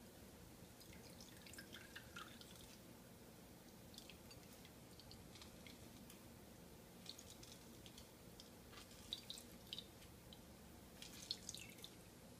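Faint scattered drips of raw onion juice as blended onion pulp is squeezed through a cotton cloth, with small wet clicks coming in clusters.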